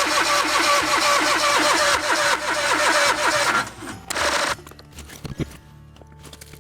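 Electric starter cranking the TimberKing 2020 sawmill's cold engine in a fast, even rhythm: a cold-weather start attempt on ether, with the choke on and the throttle up. The cranking stops abruptly about three and a half seconds in, and the rest is much quieter, with only a faint low hum.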